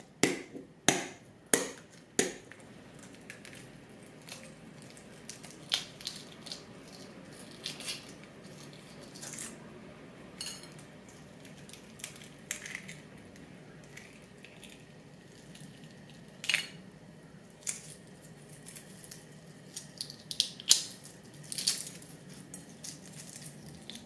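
Hard-boiled egg knocked about four times against a ceramic plate to crack the shell, then the shell crackling and snapping as it is peeled off by hand, with scattered sharp clicks.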